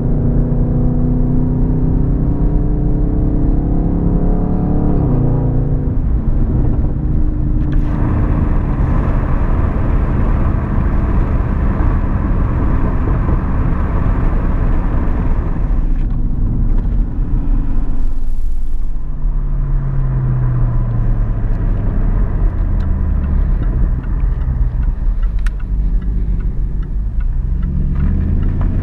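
Muffler-deleted exhaust of a Jaguar XF, heard from inside the cabin, its note following the throttle. It pulls and rises at first, turns louder and rougher for several seconds in the middle, falls in pitch as the car slows, and climbs again near the end as it accelerates.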